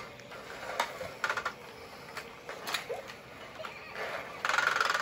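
Plastic toy vacuum (LeapFrog Pick Up and Count) being pushed across a wooden floor, its little balls clattering inside the front in several short rattly bursts, the longest near the end.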